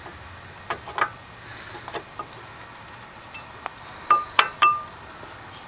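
New brake pads' metal backing plates clinking against the caliper bracket as they are wiggled into place. Two clinks come about a second in, then three louder ringing clinks in quick succession near the end.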